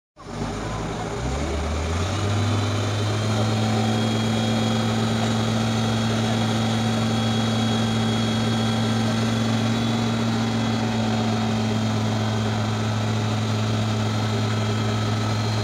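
Demag AC 615 all-terrain crane's diesel engine revving up over about two seconds, then holding a steady raised-speed drone while it drives the hoist lifting a load.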